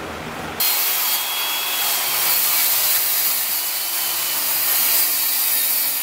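Handheld circular saw ripping through a sheet of 3/4-inch plywood. It starts suddenly about half a second in and cuts at a steady, loud level.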